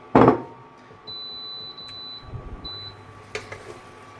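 A sharp knock just at the start, then a high, steady electronic beep from a kitchen appliance about a second in, lasting about a second, followed by a second short beep.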